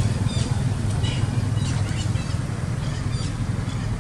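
Short high-pitched chirps and squeaks, several a second, many falling in pitch, over a steady low rumble.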